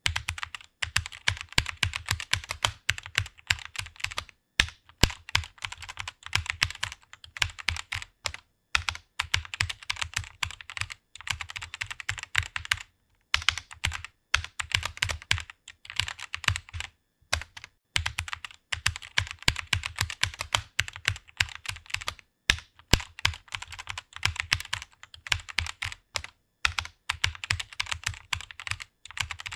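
Computer keyboard typing fast, a rapid stream of key clicks broken by brief pauses every few seconds.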